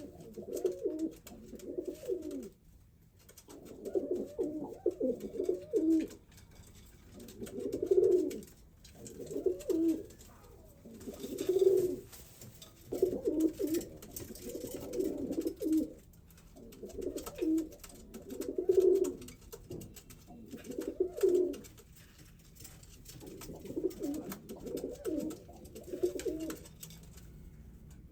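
Male domestic pigeon cooing in courtship, repeated low rolling coo phrases, about a dozen bouts each a second or two long with short pauses between.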